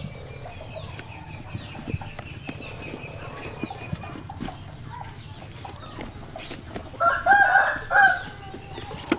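A chicken calling, with one loud call of about a second near the end over light taps and rustles.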